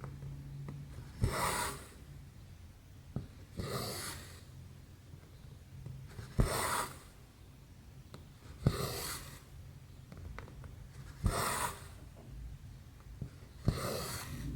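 Needle and cotton floss drawn through 11-count cross-stitch fabric, six stitches about every two and a half seconds: each a sharp tick as the needle pierces the cloth, then a short rasp as the thread is pulled taut.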